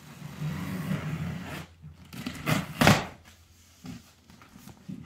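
Scissors slitting the packing tape along the top of a cardboard box for about a second and a half, then the cardboard flaps pulled open with two sharp scraping knocks about halfway through and a few lighter knocks after.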